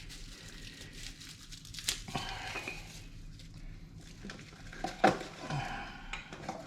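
New brake pads and their small metal hardware being handled: light crinkling and rustling with clinks of metal parts, and a few sharper clicks.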